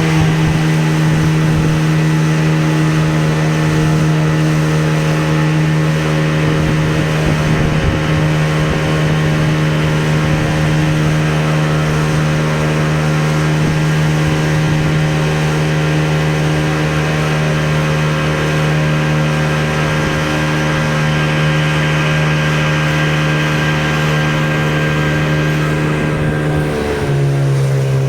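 Tour boat's engine running steadily at a constant pitch, dropping to a lower, slower note near the end as the throttle is eased back.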